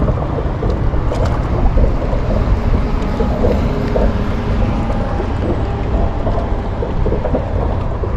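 Wind buffeting the microphone as a steady low rumble, with water splashing lightly against the boat's hull.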